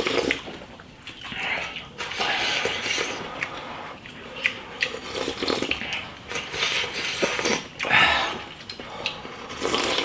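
Two people slurping hot soup from bowls: irregular loud sips and slurps, several a few seconds apart, the loudest about eight seconds in.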